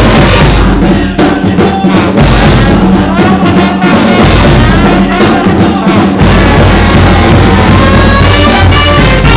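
Brass band music with trumpets, trombones and drums, lively and loud.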